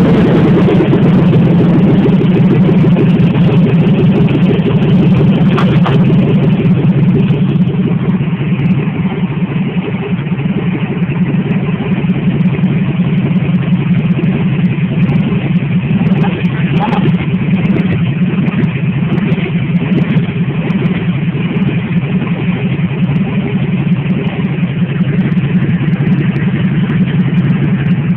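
A junkyard 350 cubic inch Chevrolet small-block V8 running steadily at idle on a test run outside the vehicle, fed by a homemade wiring harness.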